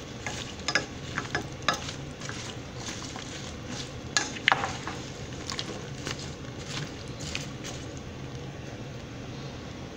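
A spoon stirring green beans, potatoes and onions in a stainless steel skillet, with irregular clinks and scrapes against the pan over a steady sizzle of the oil and water heating.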